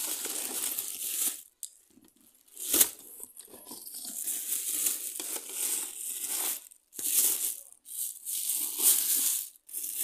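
Plastic bag crinkling and rustling in irregular bursts as it is pulled off a new induction cooktop, with one sharp knock a little under three seconds in.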